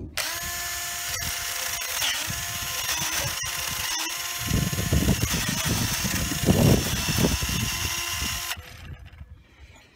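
Black & Decker 18V cordless drill spinning a hacksaw blade, its motor whine dipping in speed several times. In the middle the spinning blade thrashes through grass, and the drill stops shortly before the end.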